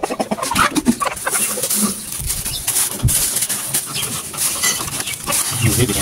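Thin plastic bag crinkling and rustling as a hand scoops grain out of it, with caged chickens clucking.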